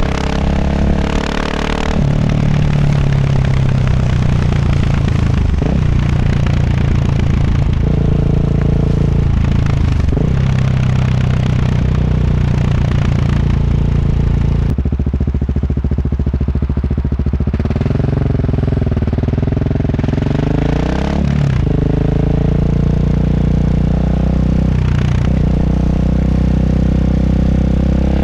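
KTM 690 SMC R's single-cylinder engine running through a Tekmo titanium racing exhaust with an Arrow muffler, held at fairly steady revs with brief dips and rises in pitch about four times. There is a quieter, lower-revving stretch a little past the middle.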